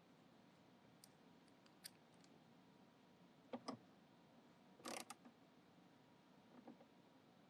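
A few faint metallic clicks and taps of a hand tool tightening the nut on a ground wire terminal, with a short rasp about five seconds in; otherwise near silence.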